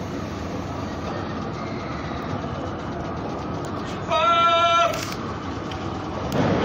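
Station platform noise around a standing JR 185 series electric train. About four seconds in comes a short horn blast of under a second, and near the end a broader, louder rush of noise rises.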